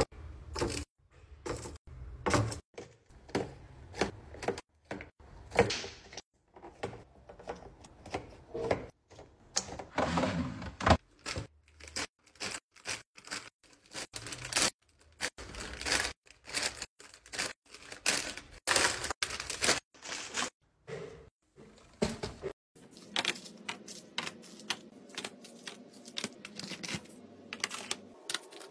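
Packaged snacks and drinks being set one by one into clear plastic bins and a woven basket: a long run of light taps and clacks, with a crinkly stretch of snack bags being handled about ten seconds in. A low steady hum sits behind the clacks of plastic yogurt cups near the end.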